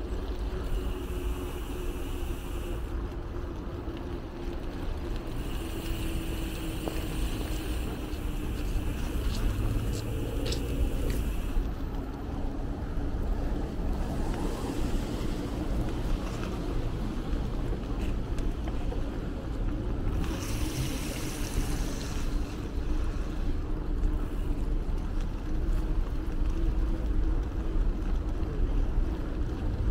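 Wind rumbling on the microphone of a moving bicycle over steady road and tyre noise, with a faint steady hum underneath; a few short hissy stretches come and go.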